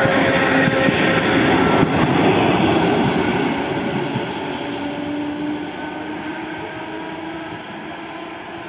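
ER2 electric multiple unit passing close by on the rails, a dense running noise with a few steady tones. It fades steadily from about four seconds in as the rear cab goes by and the train draws away.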